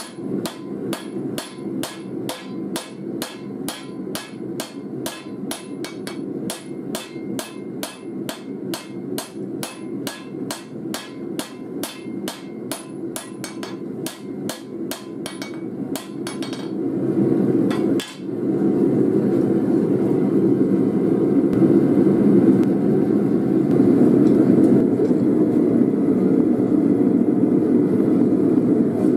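Hand hammer striking a red-hot file blank on an anvil, forging it down into a knife blade: about three blows a second, each with a high ring, for roughly the first sixteen seconds. Under it runs the steady roar of a small gas forge's burner, which is the only sound once the hammering stops and the steel is back in the forge to reheat.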